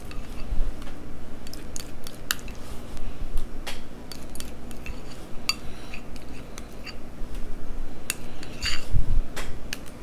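Light clinks and taps of a utensil against dishes as sour cream is dolloped onto a tray of nachos, scattered irregularly, with a few louder knocks near the end.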